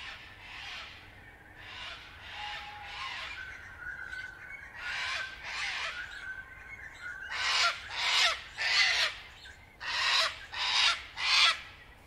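Cockatoo calling: softer calls at first, then a string of loud, harsh screeches in the second half.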